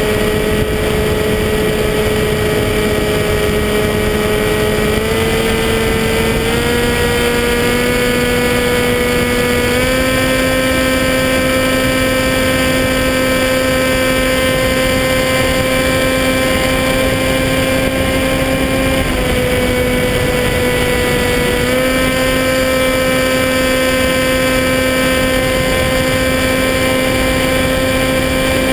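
Electric motor and propeller of a Skywalker 1880 FPV plane in flight, heard from the onboard camera: a steady whine over a rush of wind. Its pitch steps up a few times as the throttle opens in the first ten seconds, dips about two-thirds of the way through, then rises again.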